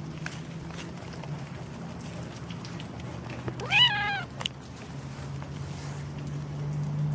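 A domestic cat meowing once, about halfway through: a short call that rises and then falls in pitch. A steady low hum runs underneath.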